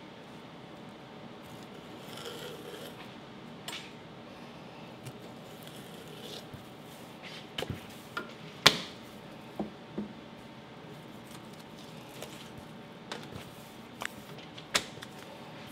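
Knife trimming raw flatfish fillets on a plastic cutting board, with scattered sharp knocks and taps of the blade and board, the loudest a little past halfway, over a steady background hum.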